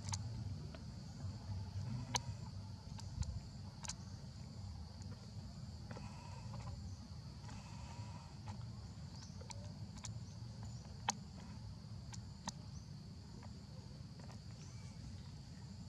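Insects droning steadily in a high, even band, over a low background rumble. A few sharp clicks stand out, the loudest about eleven seconds in.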